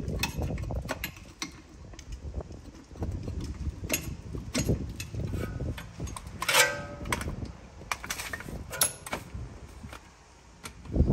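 Irregular knocks and clanks of hand tools and metal car parts being handled, with one louder clank that rings briefly about six and a half seconds in.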